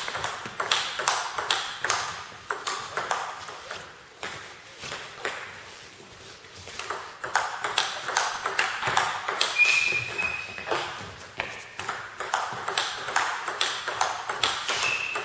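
Table tennis rally: quick, uneven clicks of the celluloid-type ball off the bats and the table, one bat faced with the Nittaku Monophonic rubber under test. The hits thin out for a few seconds near the middle, and a short high squeak sounds about ten seconds in.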